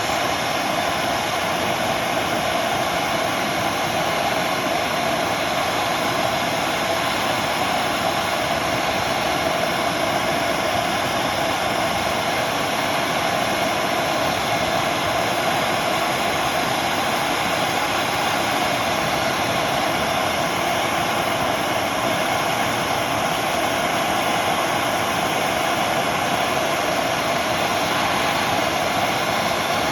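MAP gas torch burning with its valve opened all the way, giving a steady, even flame noise that holds unchanged.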